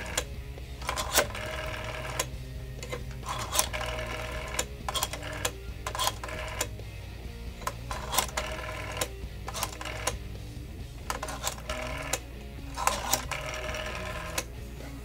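Rotary telephone dial being wound round and spinning back, making quick runs of clicks over and over as each digit is dialed, with music playing underneath.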